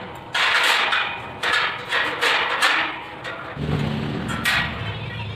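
Stick (arc) welding on a steel gate frame: the arc crackles and hisses in several short bursts of about a second each, each starting suddenly, like a run of tack welds. About three and a half seconds in, a low steady hum joins.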